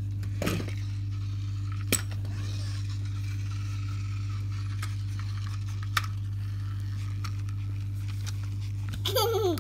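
A steady low hum, with two sharp clicks about two and six seconds in and a short pitched vocal sound near the end.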